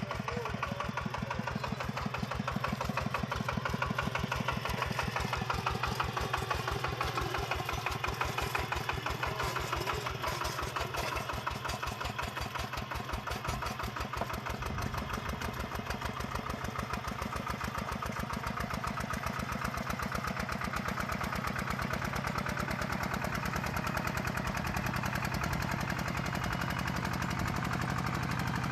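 Tractor's sound-modified Kubota engine running while working a rice paddy, a rapid, even train of firing pulses, with its low note changing about halfway through.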